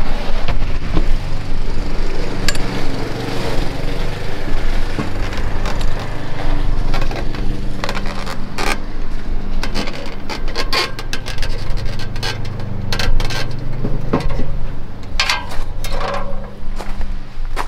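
A lawnmower engine running steadily in the background, with a string of sharp clicks and knocks from about six seconds in.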